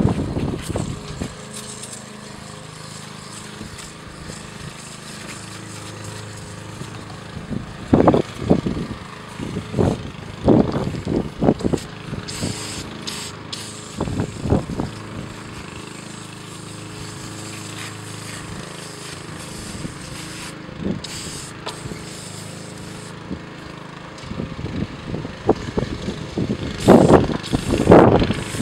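An aerosol can of foaming coil cleaner spraying in short hisses onto an air-conditioner condenser coil, with loud knocks and bumps from handling now and then, loudest near the end. A steady low motor drone runs underneath throughout.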